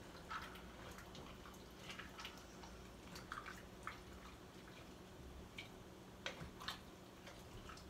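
Faint, scattered taps and clicks of a spoon stirring a pot of chili with rice, beans and water, over a steady low hum.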